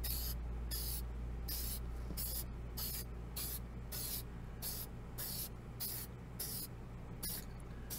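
Aerosol can of polyurethane clear coat spraying in short hissing bursts, about two a second, as light coats are sprayed back and forth across the wood trim.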